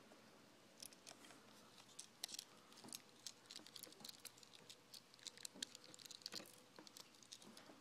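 Faint, irregular small clicks and scrapes of a knife tip turning out the tiny screws that mount a laptop screen.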